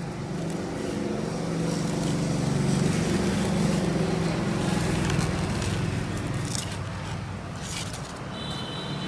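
A styrofoam block being handled, with scattered light scraping and crackling over a steady low hum that swells in the middle and then eases off.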